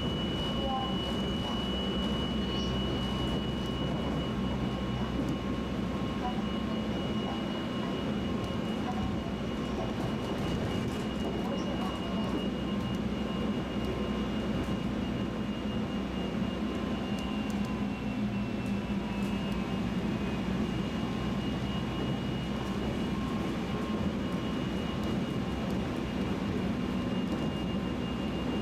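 Electric train running, heard from inside the car: a steady low rumble with a steady high-pitched whine from its VVVF inverter drive, and a faint tone that slides down about two-thirds of the way through.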